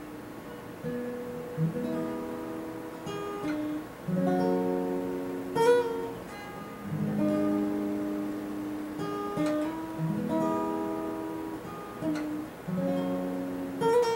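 Acoustic guitar played solo: chords picked and left to ring, changing every second or two, with a few sharper strums.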